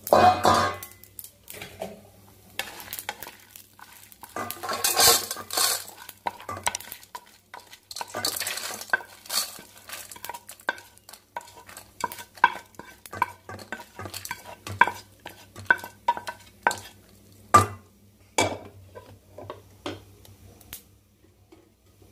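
Roasted chana dal, urad dal, dried red chillies and garlic scraped out of a steel pan and poured into a steel plate: a few bursts of scraping and rattling dry lentils in the first nine seconds, then a run of sharp metal clicks and taps, the loudest about 17 seconds in.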